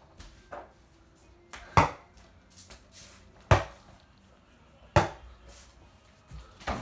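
Sharp thumps and knocks from a person moving about a small room, three loud ones about a second and a half apart with lighter knocks between.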